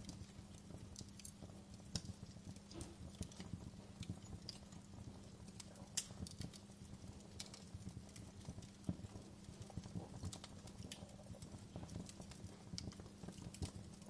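Wood fire crackling in a fireplace: faint, irregular pops and snaps from the burning logs, over a low steady hum.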